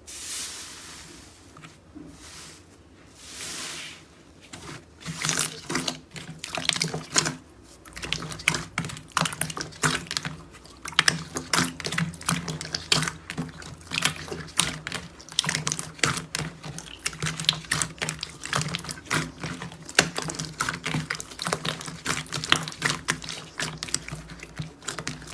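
Slime being squeezed and pressed by hand. It opens with a few seconds of soft hissing, then turns into a dense run of quick, sticky clicks and crackling pops.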